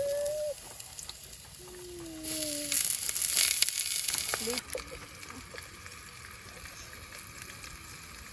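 Food sizzling in a frying pan, loudest for about two seconds near the middle and then quieter. A short high gliding voice or whine sounds near the start.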